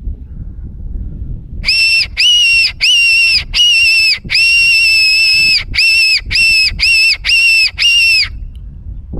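Mouth-blown Silva fox call sounding a string of about ten shrill, squealing notes, some short and some drawn out, used to lure foxes and feral cats in.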